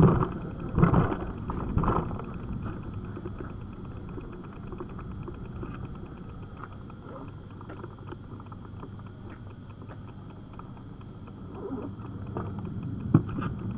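Bicycle rolling along an asphalt road, heard through a bike-mounted action camera: a steady low rumble of tyres and wind, with a few loud knocks in the first two seconds and one sharp click near the end.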